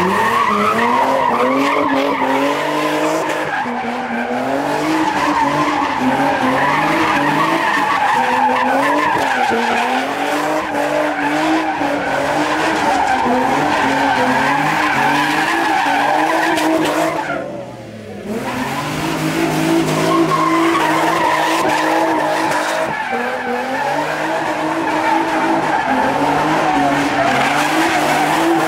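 A car doing donuts: its engine revving hard, the pitch rising and falling over and over as the driver works the throttle, over the continuous squeal and screech of spinning tires on asphalt. The sound briefly drops away about eighteen seconds in, then picks up again.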